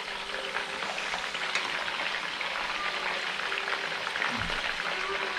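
Pieces of mackerel frying in olive oil in a pan: a steady sizzle with fine crackling.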